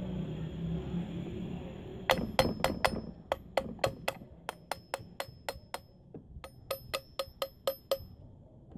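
A run of sharp metallic clicks, about four a second in three short series, each ringing at the same pitch, from the metal parts of a half-horsepower peripheral water pump as its front housing is fitted.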